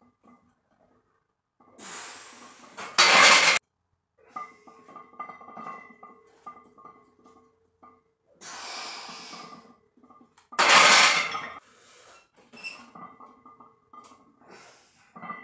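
A weightlifter breathing hard through heavy incline bench press singles: twice, a long quieter inhale followed by a sharp, loud exhale lasting about half a second, about 3 s and 11 s in. Faint music and small clinks sit underneath.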